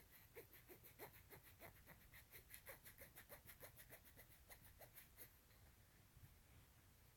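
Near silence with a faint quick run of soft clicks, about four a second, that stops about five seconds in.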